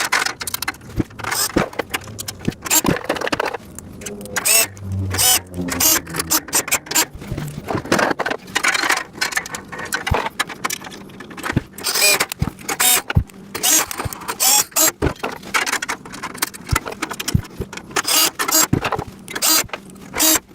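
Irregular clicks, clanks and rattles of storage-rack parts and small hardware being handled and fitted together during assembly.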